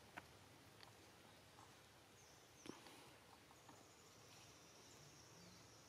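Near silence: faint outdoor background hiss with a few soft clicks, the loudest just under three seconds in, and a thin, high, steady tone in the second half.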